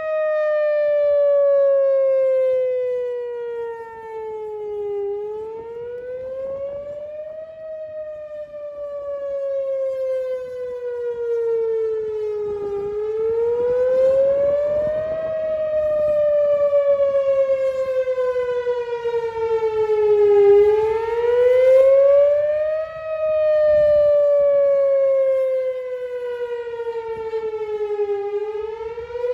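Outdoor tornado warning siren sounding a wail: one steady tone glides slowly up and down, about four cycles, each rising in about two seconds and falling more slowly over about five.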